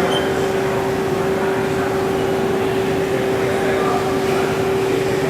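CNC lathe running with a steady mechanical hum, one held tone over a noisy drone that fades out near the end.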